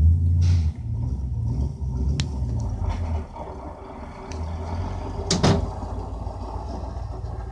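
Pickup truck engine rumbling as it drives across a muddy yard, heard muffled through a window; it is loudest in the first second and swells and fades after. A single sharp knock about five seconds in.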